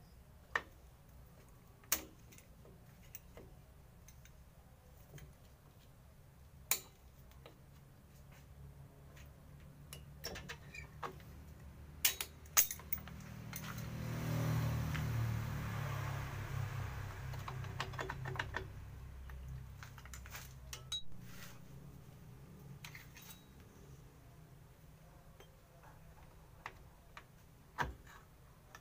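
Sporadic sharp metal clicks and clinks of hand tools and parts on an Isuzu Panther's rear drum brake as the brake shoes are fitted. About halfway through, a low rumble swells for several seconds and fades away.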